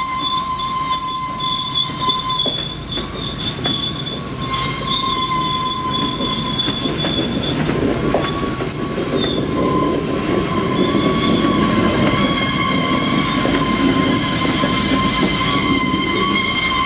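Loaded steel-slab flatcars rolling slowly past, their wheels squealing against the rails on a curve in a steady high squeal of several pitches, over a low rumble of the rolling cars.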